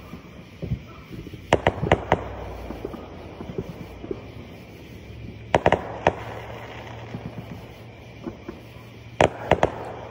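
Fireworks going off: three rapid volleys of sharp bangs, each three or four bangs long, about four seconds apart, with scattered smaller pops in between.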